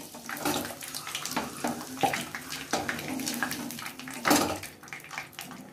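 Metal tongs clicking and scraping against a non-stick kadhai as fried boiled eggs are lifted out of hot mustard oil, over a steady sizzle of the oil. One louder knock comes about four seconds in.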